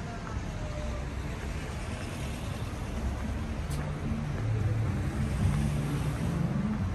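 City street traffic: car engines running on the road close by, with a low engine hum that swells as a car passes a few seconds in.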